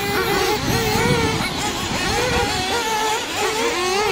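Small two-stroke glow (nitro) engines of several 1/8-scale off-road RC buggies racing together. Their overlapping high whines rise and fall over and over as the throttles open and close.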